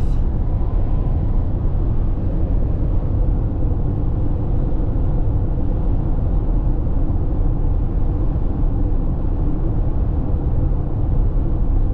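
Steady low rumble of a car driving along a highway, heard from inside the cabin: road and engine noise with no changes.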